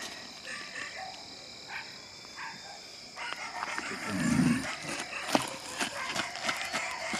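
Night ambience of steadily chirping insects, broken about four seconds in by a short, low sound and a sharp click about a second later.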